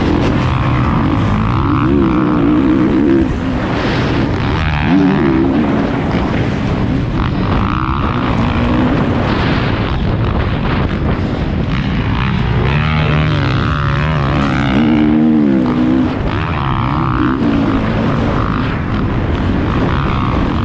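Motocross dirt bike engine running hard under race conditions, its pitch climbing and dropping again and again as the rider revs through the gears, over a steady rush of wind and engine noise.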